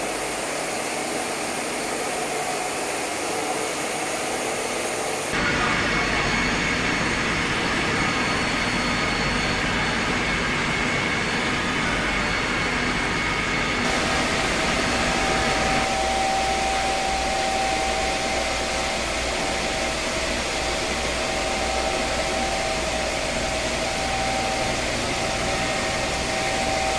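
Steady machine noise from a short-path molecular distillation plant's motors and pumps running: a continuous whirring hum with a few steady whines. The sound changes abruptly about five seconds in and again about halfway through.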